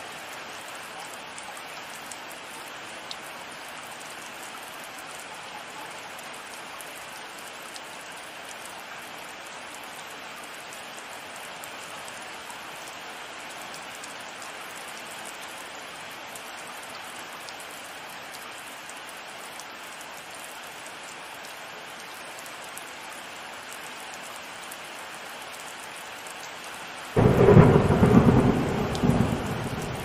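Steady heavy rain falling, then near the end a sudden loud thunderclap that rumbles on and fades.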